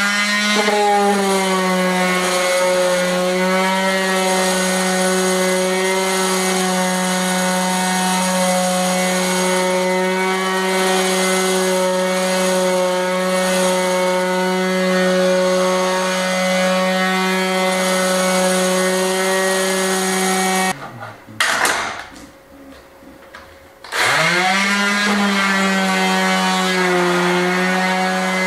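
Electric orbital sander running steadily as it sands the edge of a reclaimed timber board, rising in pitch as it spins up at the start. It is switched off about three quarters of the way through, then started again a few seconds later, rising to speed once more.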